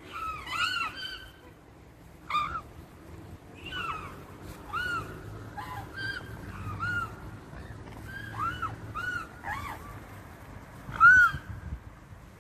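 Young mute swans (cygnets about five months old) giving a series of short, high, whistled calls, each rising and falling in pitch, about a dozen at irregular intervals, the loudest near the end.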